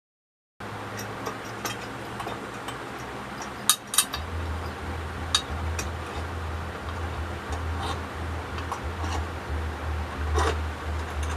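Light clicks and clinks of small hard objects being handled, with two sharp clicks close together about four seconds in, over a steady low hum that swells from that point.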